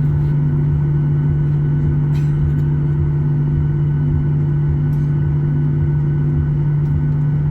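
Steady cabin drone of a Boeing 737-800 in flight: its CFM56-7B engines and rushing airflow, with a strong low steady hum over a rumbling noise.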